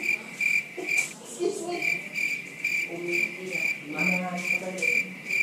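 Cricket chirping: a steady run of short, high chirps, about two a second.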